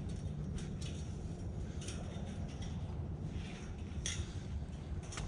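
Light clicks and rustles of a zip tie and sensor cable being handled against a chain-link fence and steel post, over a steady low outdoor rumble.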